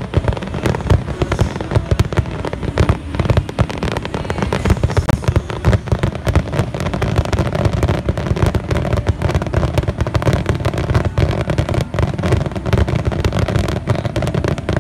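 Fireworks display in a dense barrage: many aerial shells bursting in quick succession, the bangs overlapping with no break.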